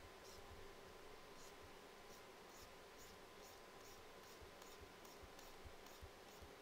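Faint, quick scratches of a Wacom tablet pen nib dabbing and stroking on the drawing tablet, two or three a second, starting about a second and a half in.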